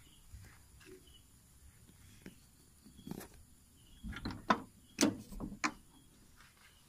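A scattering of sharp clicks and light knocks, as a hand handles a car's door and window frame, bunched together from about four to six seconds in.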